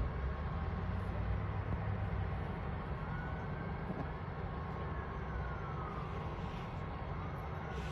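Steady low rumble of road traffic and running engines, with a faint distant siren slowly wailing up and down.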